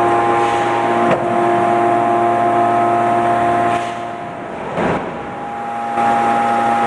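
Hydraulic sheet-metal machine running with a steady hum of several tones. A sharp click comes about a second in, and a short rush of noise comes near the middle while the hum drops in level for a couple of seconds.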